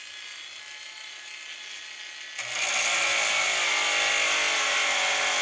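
Cheap cordless angle grinder cutting through a half-inch metal round bar with a thin cutting disc: the motor whines steadily under load amid the grinding noise, quieter at first, then much louder from about two and a half seconds in.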